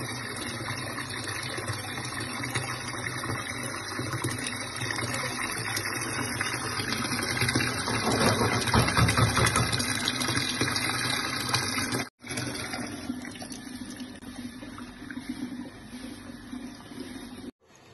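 Tap water pouring in a steady stream into a tub of water full of purslane leaves, splashing, loudest about eight to ten seconds in. After a momentary break about twelve seconds in, a quieter, uneven swishing follows as a hand stirs the leaves through the water.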